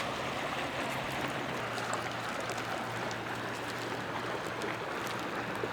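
Steady rushing outdoor noise with a faint low hum underneath, cut off suddenly at the very end.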